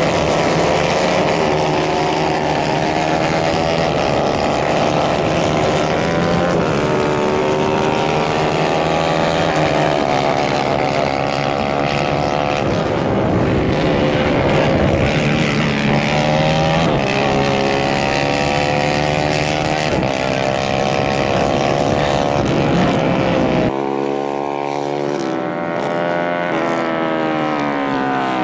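Several racing kart engines buzzing at high revs, their pitch rising and falling as the karts pass. About 24 s in the sound cuts to one kart close by, its engine pitch climbing as it accelerates.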